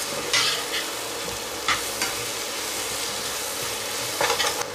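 Aubergine wedges sizzling in oil in a frying pan while a slotted metal spoon stirs them, with a few short scrapes of the spoon against the pan and a louder cluster of scrapes near the end.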